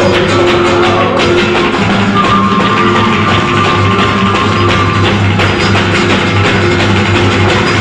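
Live flamenco music: guitar with a dense, fast run of percussive hand claps and beats, and one held tone from about two to five seconds in.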